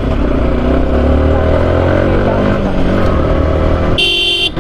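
Motorcycle engine running steadily. A short horn beep sounds about four seconds in.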